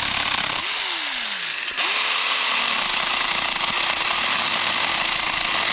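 Saker 20-volt cordless mini chainsaw with the chain running. Its electric motor winds down about half a second in, then spins back up just before two seconds and runs steadily at a constant pitch.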